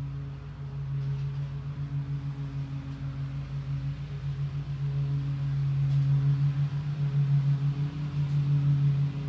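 A motor running with a steady low hum and a fast flutter, getting louder about halfway through.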